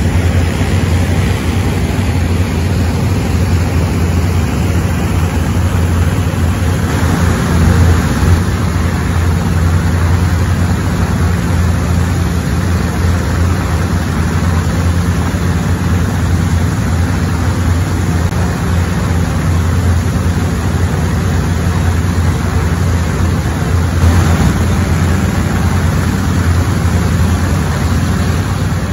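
The Wright R-2600-20 fourteen-cylinder radial engines of TBM Avenger torpedo bombers are running up, giving a loud, steady, deep drone. The sound swells briefly about seven seconds in and again near the end.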